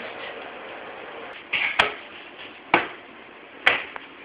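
Three sharp knocks, about a second apart, starting about a second and a half in, over faint room hiss.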